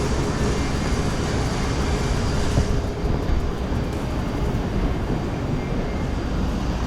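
Steady road and engine noise inside a moving car, a constant low rumble with a faint hum.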